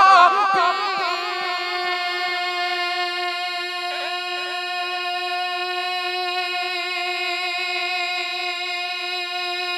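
A man's voice holding one long, steady sung note of a naat through a microphone, wavering briefly about four seconds in.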